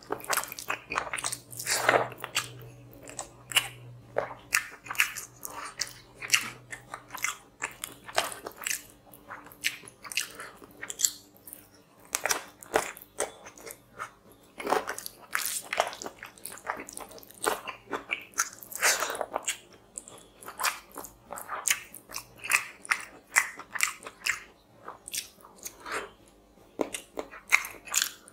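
Close-miked eating sounds: a person chewing and lip-smacking mouthfuls of rice and chicken curry, with the wet squish of fingers mixing rice on the plate. Many short, irregular smacks and clicks.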